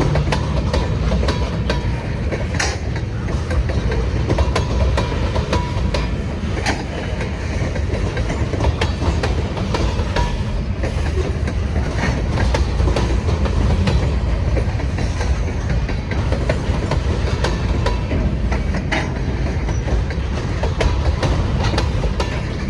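A string of freight cars, grain hoppers among them, rolling past slowly on the rails: a steady low rumble with irregular sharp clicks and clanks of wheels over rail joints.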